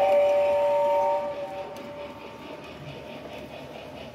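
Toy Harry Potter train set's steam-whistle sound effect: a chord of a few steady tones held for about a second. Fainter running noise follows.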